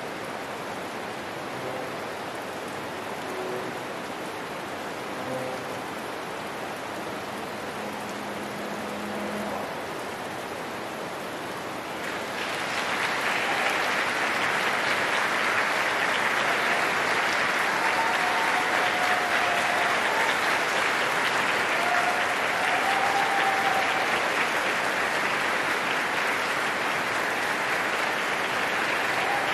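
Heavy rain drumming on the theater roof, with faint held string-quartet notes beneath it; about twelve seconds in, audience applause breaks out, much louder, and runs on steadily.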